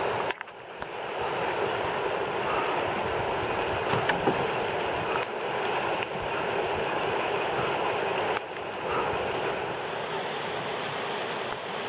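Steady rush of whitewater river rapids.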